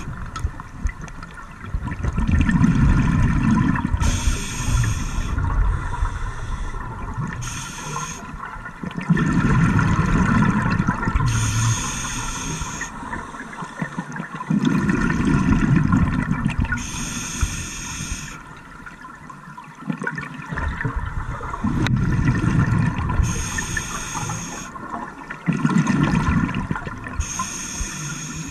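Scuba diver breathing through a regulator underwater: a short hissing inhale alternates with a longer bubbling rumble of exhaled bubbles, about five breaths, one every five or six seconds.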